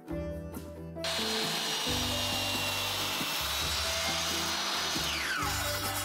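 Sliding miter saw starting suddenly about a second in and cutting across a construction-grade 2x6 board, a loud noise with a high whine for about four seconds. Near the end the whine falls steadily as the blade spins down after the cut.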